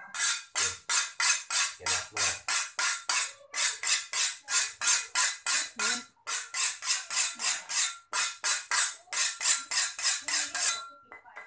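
A cleaver being sharpened by stroking it against another blade: quick metal-on-metal scrapes, about three a second, with a faint ring, pausing briefly a few times and stopping just before the end.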